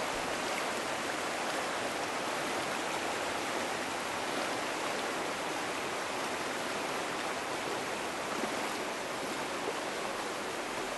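Shallow, fast river water rushing over stones in a riffle: a steady, even rush that cuts in suddenly out of silence.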